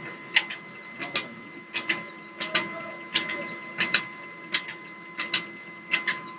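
Belt-driven mustard-oil expeller running, giving a sharp double click about every three-quarters of a second over a steady hum.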